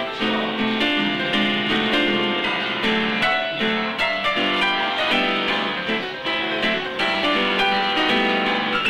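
An upright piano played live: a quick tune of many notes over a steady, even rhythm of repeated chords.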